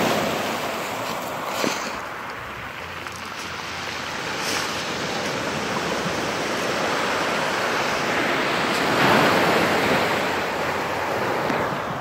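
Ocean surf washing up a pebble beach and drawing back, the backwash pulling the stones so they rattle under the hiss of the water. The wash swells near the start and again about nine seconds in.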